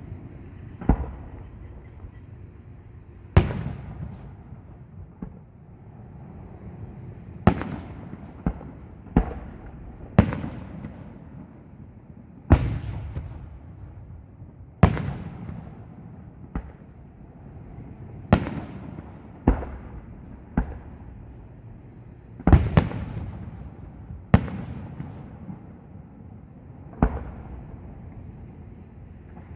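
Aerial fireworks shells bursting one after another, a loud bang every second or two, each followed by a rolling echo.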